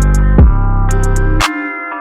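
Background music: a hip-hop beat with heavy sustained bass, sharp drum hits and a plucked guitar-like melody. The bass drops out about one and a half seconds in, leaving the melody.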